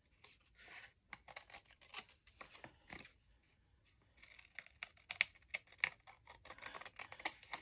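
Scissors cutting through cardstock: a run of short, crisp snips, with a brief quieter pause a little before halfway.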